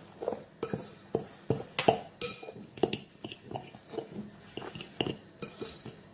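Metal fork clinking and scraping against the side of a bowl while stirring a thick semolina-and-egg batter, in quick uneven taps about three a second.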